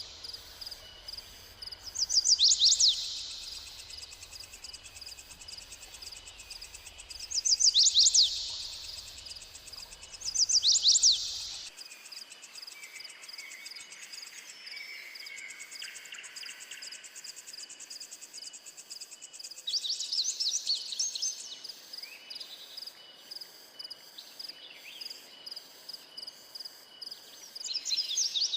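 Wild forest birds and insects: a steady high insect chorus with fast pulsing runs throughout, while a bird breaks in every few seconds with loud bursts of rapid sweeping high notes, about a second each. A softer, lower whistled phrase comes in around the middle.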